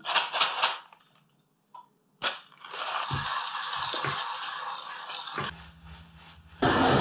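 Hand coffee grinder being cranked: its burrs grind through whole coffee beans in a steady rasping, ratcheting run of about three seconds, after a brief rattle of beans at the start. A louder steady sound comes in shortly before the end.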